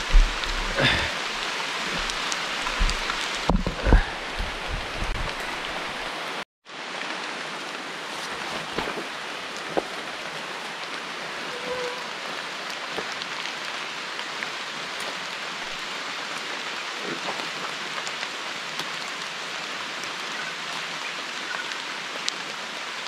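Heavy rain falling steadily. A few low thumps come in the first few seconds, and the sound drops out completely for a moment about six and a half seconds in.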